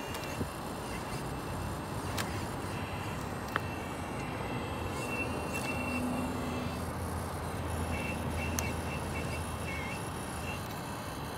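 Radio-controlled model excavator's small electric motors and gears whirring on and off as the cab swings and the boom and grapple move, with a few sharp clicks.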